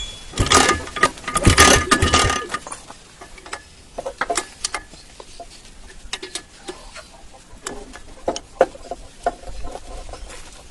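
Metal tools clinking and clicking as the spark plug is taken out of a 1975 Rajdoot motorcycle engine: a dense run of clinks in the first two seconds or so, then scattered single clicks.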